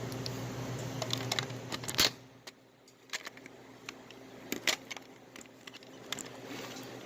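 A steady electrical hum cuts out with a sharp click about two seconds in, followed by scattered light clicks and taps of small objects being handled.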